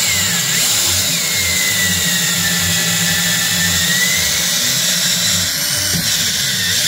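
Power drill running continuously, turning a reamer through a new Delrin bushing in a leaf-spring eye, with a steady whine whose pitch sags a little in the middle.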